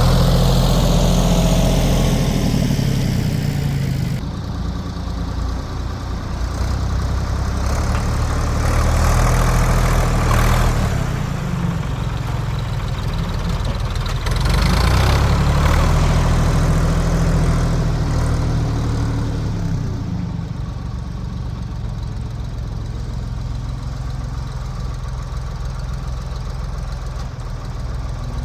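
1973 Ford 4500 industrial backhoe's diesel engine running while digging out a stump. Its revs swell and fall back about three times as the hydraulics take load, then settle to a steadier, quieter run in the second half.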